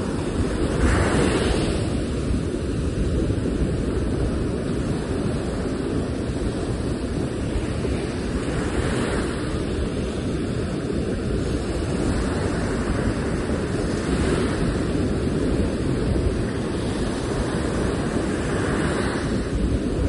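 Sea surf breaking on a sandy beach: a continuous low rush of water, with the hiss of a breaking wave swelling up about four times.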